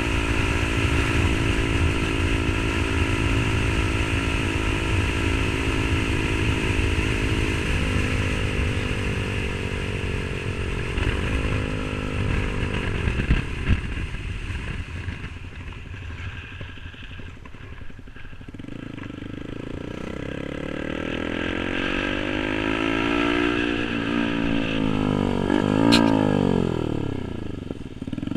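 Yamaha R15 V3 sport bikes with an aftermarket SC Project exhaust running on the road. An engine holds steady revs, then its pitch drops as it slows about halfway through, and it goes quieter. Exhaust notes then rise and fall in pitch, growing louder toward a peak near the end, as the bikes speed up, slow down and pass by.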